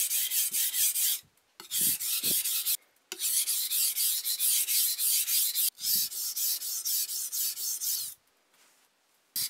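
Chef's knife blade scraped back and forth on the coarse side of a wet whetstone: rhythmic strokes at about four a second in runs broken by short pauses, with a longer pause near the end. The edge is being ground until a burr rises along the whole blade.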